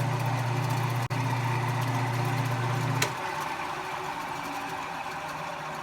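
Wood lathe motor running with a steady hum that stops with a click about three seconds in, leaving a quieter hiss.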